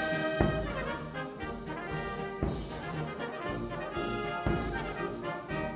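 Instrumental background music led by brass, with occasional sharp percussive hits.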